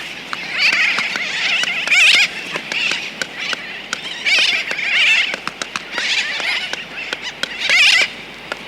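Laysan albatross clicking its bill close up, sharp clicks scattered throughout, among repeated bursts of sooty tern calls, the loudest about two seconds in and near the end. A distant tern colony chatters behind.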